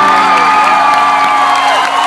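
Concert crowd cheering and whooping over the band's last held chord, which dies away near the end.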